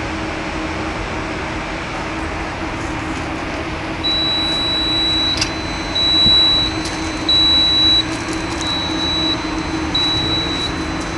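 A building maintenance unit's warning beeper gives repeated high-pitched beeps, each about a second long with short gaps, starting about four seconds in as the unit is worked from its control panel. Under it runs a steady low machinery hum, and a control switch clicks once about five seconds in.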